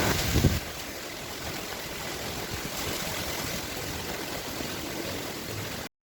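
Steady rushing noise of strong wind and sea surf, with a heavy low rumble in the first half second. The sound cuts off abruptly just before the end.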